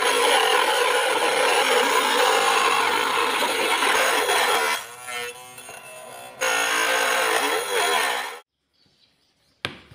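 Homemade mini table saw driven by a salvaged DC motor, its spinning blade cutting through a grey PVC sheet. The loud cutting noise eases to the lighter whine of the motor running with less load for about a second and a half around the middle, comes back as the cut resumes, then stops abruptly about eight seconds in. A single sharp knock follows near the end.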